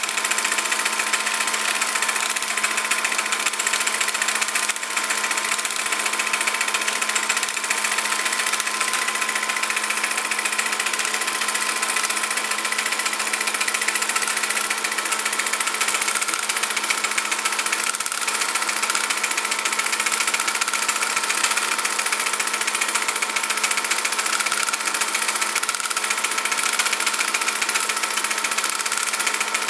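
A small motor running steadily: an even mechanical whir with a constant hum, unchanging throughout.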